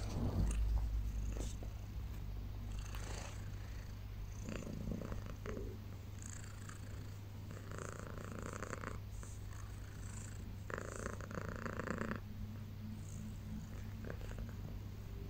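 Domestic cat purring loudly and steadily while being scratched under the chin. The purr swells louder in a few stretches.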